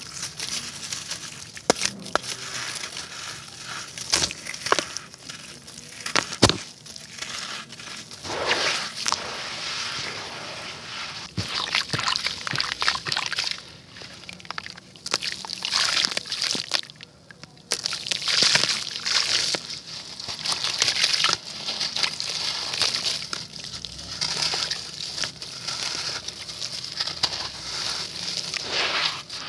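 Soaked black concrete crumbled and squeezed by hand over a tub of water: gritty crunching and sharp crackles as chunks break, with water sloshing and pieces splashing into it.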